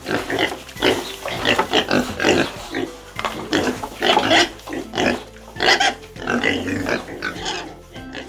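Pig grunting in rapid, irregular bursts.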